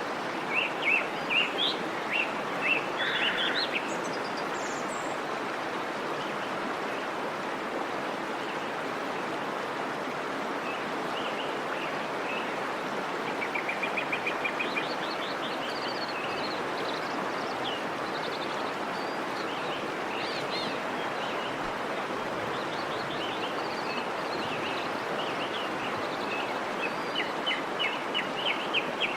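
Birds chirping in short scattered calls, with a fast trill about halfway, over a steady rushing noise.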